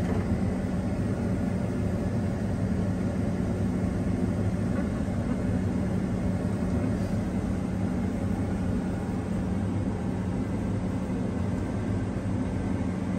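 Harvest machinery's diesel engine running with a steady low drone, holding an even speed throughout.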